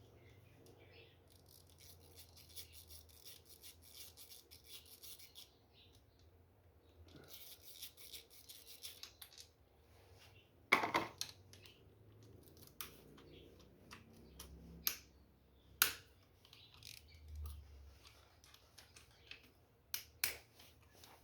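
Hand tools at work on a Honda CG 125 Titan's engine, loosening the cover bolts. There are two stretches of faint fine scraping, then a few sharp metallic clinks spread apart.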